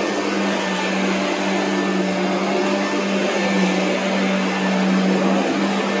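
Royal commercial upright vacuum cleaner running steadily as it is pushed over carpet: a constant rush of motor and air with a steady low hum underneath.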